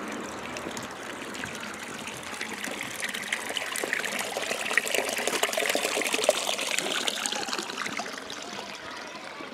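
Water pouring from a fountain spout into a stone trough, splashing steadily. It grows louder through the middle and fades near the end.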